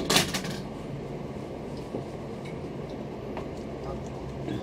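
Steady low background hum of a room, with one short burst of rustling-like noise just after the start.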